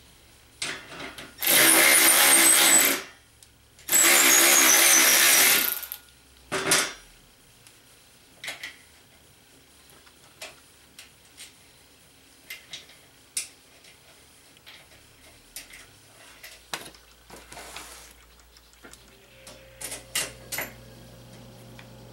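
Cordless electric ratchet running in two bursts of about a second and a half each, its whine falling in pitch as it runs a nut down onto a bolt through the sheet-metal panel into a 2x4. Small metal clicks and clinks of nuts, washers and hand tools follow.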